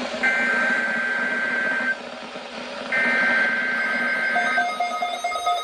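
NOAA Weather Radio EAS/SAME digital header: two harsh, buzzy data bursts of a little under two seconds each, about a second apart, encoding the alert for a weekly test. Around four and a half seconds in, a pulsing beep starts.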